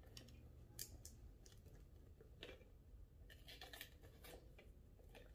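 Faint, crisp cracking and squeaking of a red bell pepper's flesh as its stem is pushed inward by hand to break the core loose, in a scatter of short snaps.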